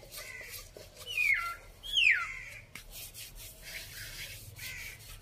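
A bare hand rubs oil over an unglazed clay cooking pot to season it, making a soft, repeated rubbing. Over it a bird gives two loud falling whistled calls, about one and two seconds in.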